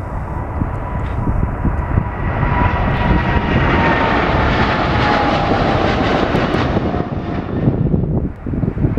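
Boeing 777-300ER's twin GE90 turbofans passing by, their noise swelling to a peak about halfway through and then easing off. A whining tone slowly drops in pitch as the jet goes past.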